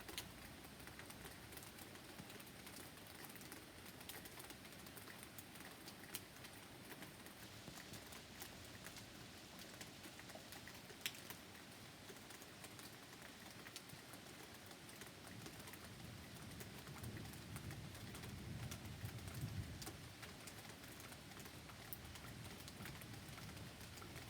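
Faint rain pattering, with scattered sharp drip clicks. A low rumble of distant thunder swells and fades about two-thirds of the way through.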